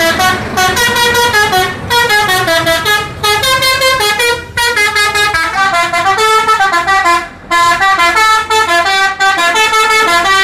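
Tour bus's multi-tone musical horn (a 'telolet' horn) sounding loudly, playing a quick melody of short notes in runs with a few brief breaks.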